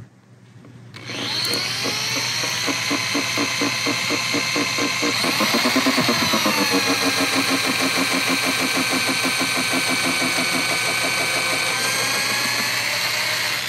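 Corded electric drill running, drilling out stripped old plastic screws in a Jeep's bumper trim. The motor whine starts about a second in, dips and settles lower about halfway through as the bit cuts, and runs steadily to the end.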